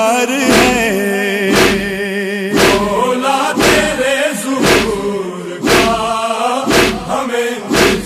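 Male voices chanting a noha, a Shia lament, over a steady beat of chest-beating (matam) thuds about once a second.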